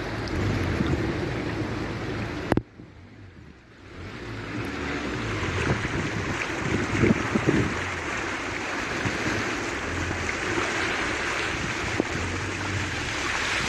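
Muddy floodwater rushing and splashing along a flooded street around a car, with rain and wind buffeting the phone's microphone. The sound drops out abruptly for about a second and a half, about two and a half seconds in.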